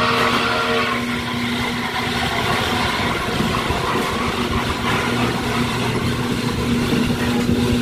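A small amusement-ride car's motor runs steadily with a constant low hum over a rumble from the wheels on the track, heard inside a corrugated metal tunnel.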